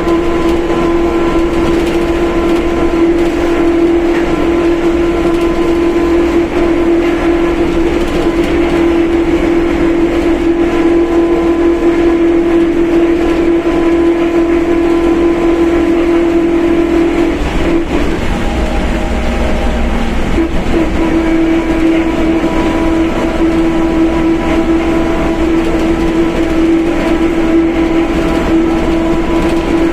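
Mercedes-Benz OF1721 BlueTec 5 bus under way, its differential whining loudly in one steady high tone over the low running noise. A little past halfway the whine drops out for about three seconds, a lower tone taking its place, and then it comes back.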